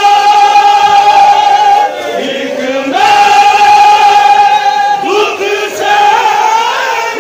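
A group of men chanting an old noha, a Shia lament, together in unison, holding long drawn-out notes with a brief dip about two seconds in.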